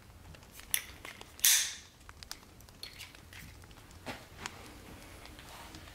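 Plastic leg clip on a Helinox cot's aluminium side pole being handled and fitted: a few sharp clicks and a brief loud scrape about one and a half seconds in, then lighter clicks and taps.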